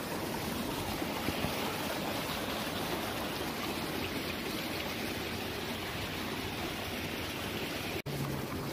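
Small mountain stream flowing, a steady rushing of water.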